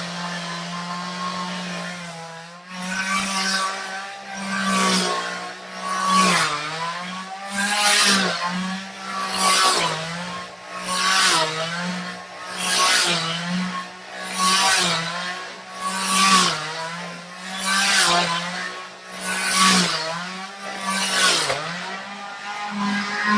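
Two-stroke chainsaw running at high revs, its pitch dipping under load and recovering again and again, about every second and a half, as it cuts into hedge growth.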